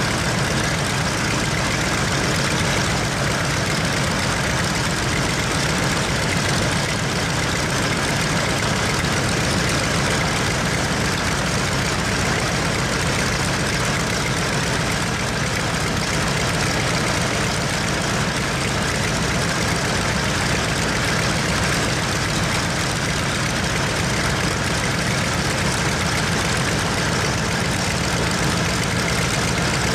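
Mitsubishi A6M5 Zero fighter's Nakajima Sakae 21 fourteen-cylinder radial engine running steadily on a ground run, its propeller turning.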